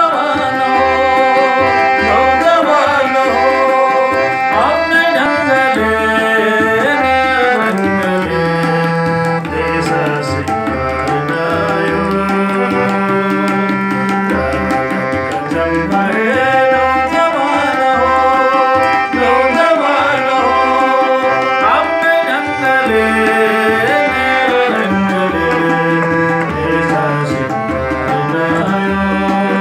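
A man sings a Nepali patriotic song while playing a harmonium, over a steady tabla-style drum beat.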